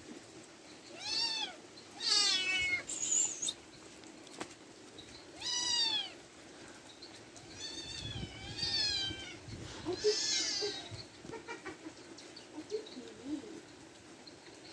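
A domestic cat meowing repeatedly, about six separate calls, each rising then falling in pitch.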